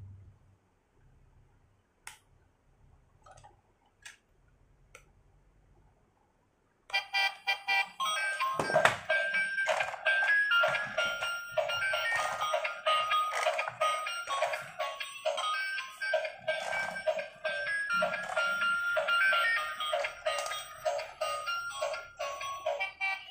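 Battery-powered transparent gear toy car playing its tinny electronic tune through its small speaker. The tune comes in suddenly about seven seconds in, after a few faint clicks, and runs on without a break.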